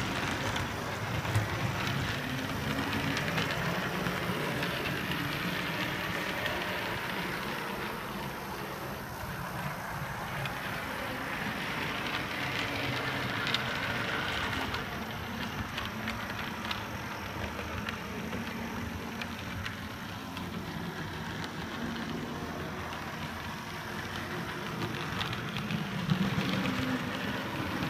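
Model camelback steam locomotive and tender running along the track: a steady rolling rattle of wheels and motor, with a few sharp clicks along the way.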